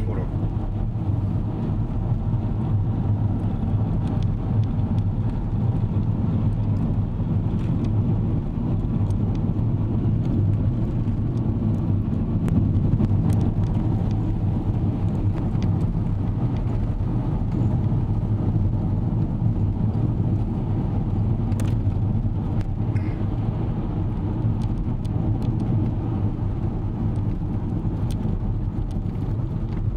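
Steady low rumble of a car in motion, heard from inside the cabin while it drives along a road.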